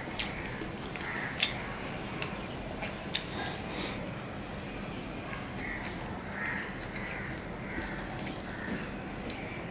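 Close-miked eating sounds: a person chewing rice and curry with wet lip-smacking, while fingers mix rice on a steel plate. A few sharp clicks stand out, the loudest about a second and a half in.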